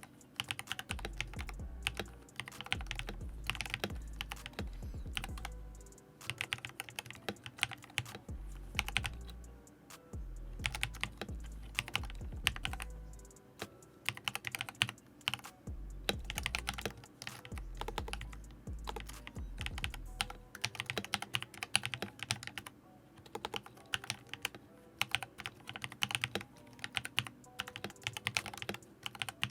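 Typing in runs on a Redragon Lakshmi K606R mechanical keyboard fitted with AKKO CS Matcha Green linear switches: quick clusters of key clacks with short pauses between bursts. An on-and-off low rumble sits under the typing for the first two-thirds.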